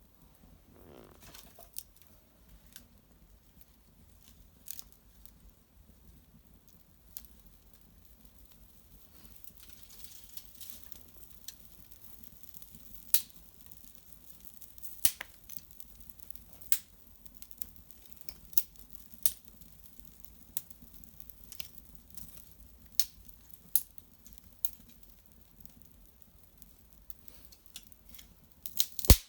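Small fire of dried maple brushwood crackling, with irregular sharp pops a second or two apart that grow louder and more frequent over time, and one loud snap near the end.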